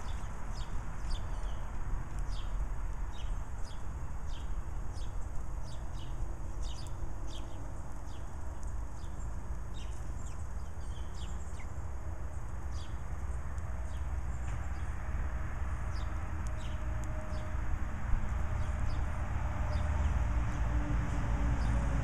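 Small songbirds giving short, high chirps, many in quick succession through the first half and fewer later, over a steady low rumble of road traffic that grows louder near the end.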